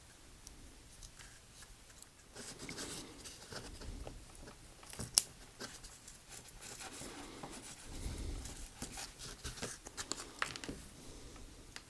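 Faint rustling and handling of insulation tape on a small chess piece, with scattered small clicks and one sharp click about five seconds in.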